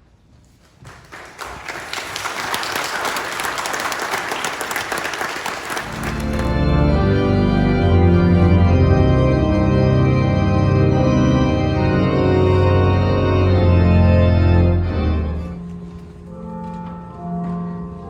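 Audience applauding for about five seconds, then an organ comes in loud with held chords and a strong bass for about nine seconds. It drops to softer, sparser notes near the end.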